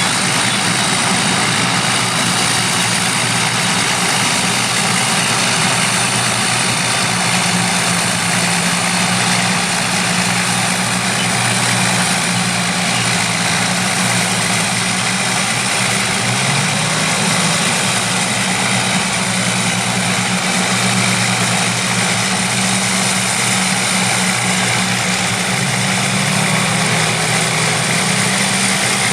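Engines of vintage crawler bulldozers and scrapers running steadily, with a low engine note that shifts slightly in pitch now and then as the machines work.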